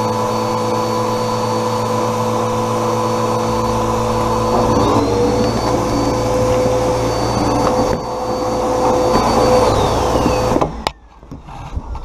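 Vacuum cleaner running as it sucks up dust from under a refrigerator, with a steady whine over a rushing of air. The whine dips and recovers about five seconds in. Near the end it is switched off and the whine falls away as the motor winds down.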